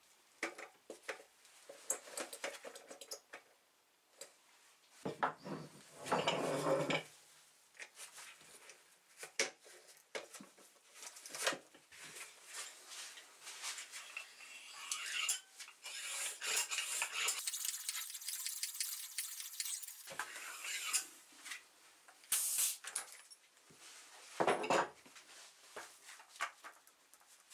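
A bicycle wheel being handled and pumped up with a restored vintage Graco hand pump: scattered clicks and knocks as the pump hose is fitted to the tyre valve, and a hissing stretch of about five seconds past the middle as air is pumped in.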